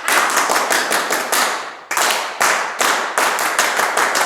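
Paó for Exu: a group clapping the ritual hand-clap salute in quick runs of sharp claps, broken by a short pause about two seconds in.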